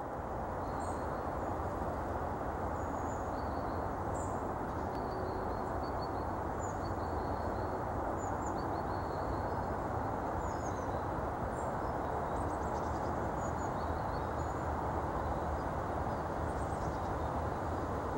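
Steady low outdoor background rumble with faint, short, high chirps of small birds scattered throughout.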